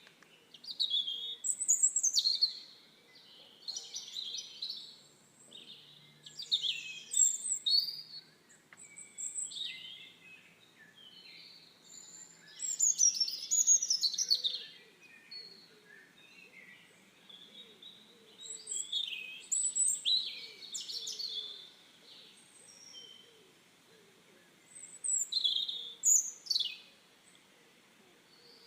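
Songbirds singing and chirping, several overlapping high, quick phrases in bouts every second or two.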